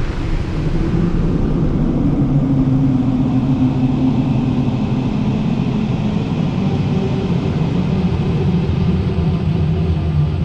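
Designed horror sound effect: a loud, steady, low rumbling drone whose pitch drops slightly about halfway through.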